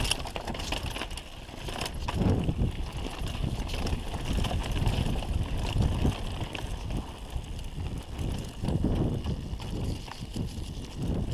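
Mountain bike rattling and clattering over rocks and ruts on a muddy descent, with many quick knocks from the bike and tyres, and wind buffeting the microphone in low surges.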